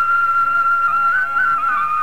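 Background music: a high melody holds one long note with small ornamental turns, over a soft lower accompaniment.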